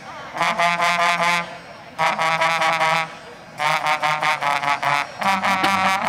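Marching band brass section playing loud, bright phrases of quick repeated notes over a held low note, in four bursts of about a second each with short pauses between.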